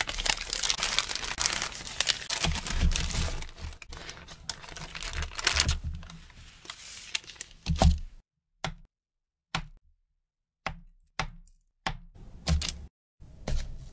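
Parchment paper crinkling and rustling as a log of cookie dough is rolled inside it. Then a knife slices through the dough log in a series of separate cuts, each a short sharp tap of the blade on the board.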